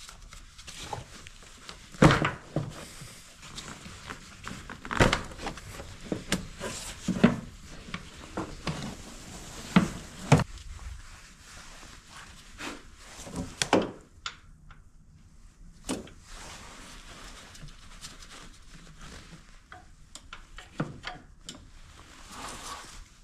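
Irregular clicks, knocks and rattles of hand tools and metal parts in a car's engine bay as the serpentine belt is worked off the alternator, with a few sharp knocks in the first half and quieter handling later.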